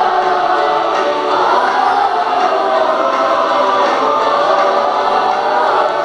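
A group of children singing a song together as a choir, continuous and steady in loudness.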